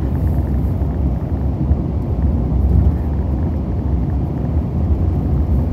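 Car driving along a road, heard from inside the cabin: a steady low rumble of tyre and engine noise.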